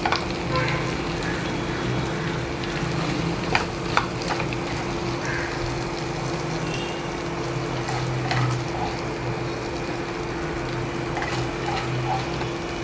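Serving spoon scraping and clinking against a frying pan and plate as a dry radish curry is spooned out, with a few sharp clinks, two close together about halfway through. A steady hum runs underneath.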